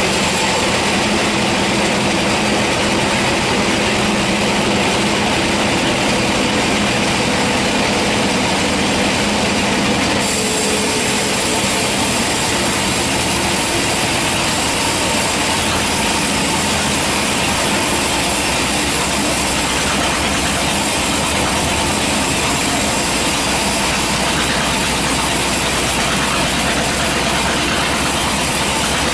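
Sawmill band saw running steadily as its blade cuts lengthwise through a hard teak log, a loud continuous rush of machine and cutting noise with a metallic squeal.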